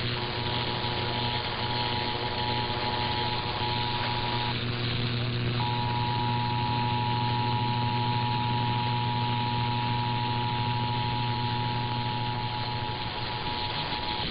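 Emergency Alert System attention signal, the steady two-tone alert sounded for a required monthly test. It plays over a steady low hum and hiss, and breaks off for about a second roughly four and a half seconds in.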